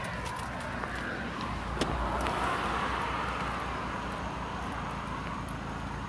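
Idling car engine and steady road noise, with one sharp knock about two seconds in.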